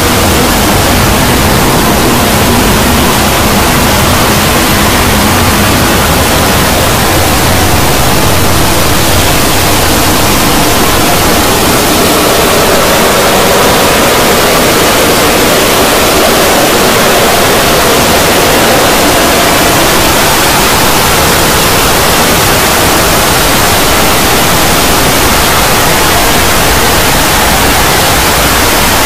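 A loud, steady wall of noise-like din made from dozens of overlapping, sped-up video soundtracks mixed on top of one another, so dense that it sounds almost like static. A few faint held tones drift through it.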